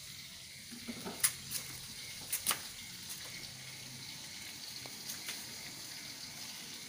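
Steady hiss with a few sharp clicks or taps, the loudest about a second in and a pair about two and a half seconds in.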